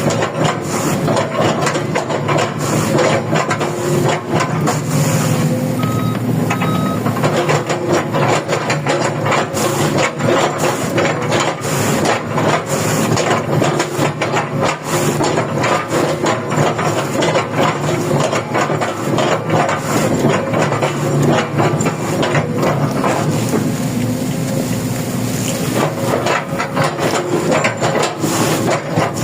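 Komatsu PC200-10 excavator's diesel engine working steadily under load while its bucket chops up oil palm trunks, with continual crunching and cracking of the wood. Two short beeps sound about six seconds in.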